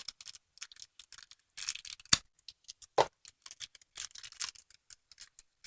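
Hands opening a small taped package: the wrapping rustles and crinkles with scattered small clicks, and two sharper clicks come about two and three seconds in.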